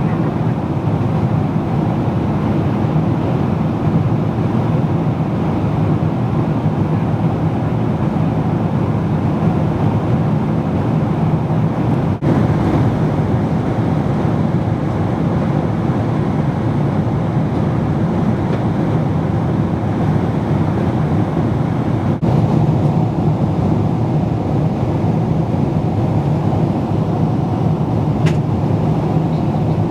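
Steady cabin noise of a jet airliner in flight: the even rumble and rush of the engines and the air over the fuselage, dipping very briefly twice.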